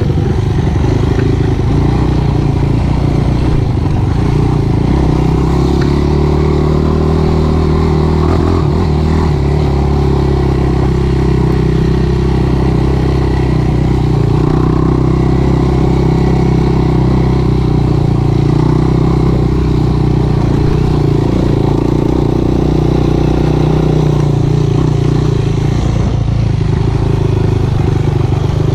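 Sport quad's single-cylinder four-stroke engine running at fairly steady revs while riding, with only small shifts in pitch.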